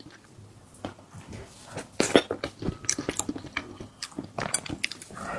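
Close-miked chewing of a mouthful of braised potato with pork belly: a quick run of short mouth clicks that grows busy about two seconds in.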